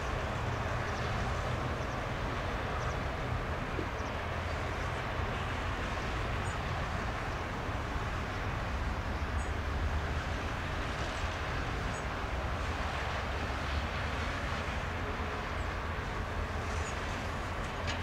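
Steady jet engine noise from aircraft taxiing, a continuous rumble and hiss with no pauses.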